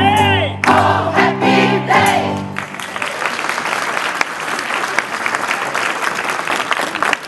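A gospel choir singing over sustained instrumental chords, stopping about two and a half seconds in as the song ends. A crowd then applauds.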